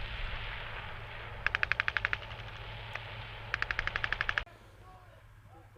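Two bursts of automatic machine-gun fire, each of about ten rapid rounds, roughly two seconds apart, over a steady low rumble. The sound cuts off abruptly near the end.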